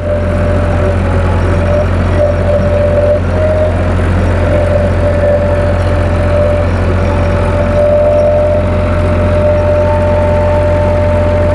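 JCB backhoe loader's diesel engine running steadily under load while its backhoe arm digs wet clay, a low drone with a steady whine over it.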